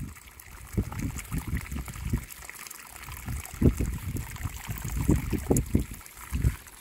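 Hot spring water trickling through a narrow rock channel, with irregular low sloshes and knocks as a plastic bag of quail eggs is jostled in the water and poked with a stick.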